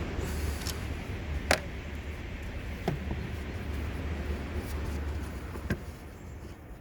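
Mercedes-Benz OM651 four-cylinder diesel running at idle as a steady low hum, with three sharp clicks over it, the first the loudest. The hum drops away near the end.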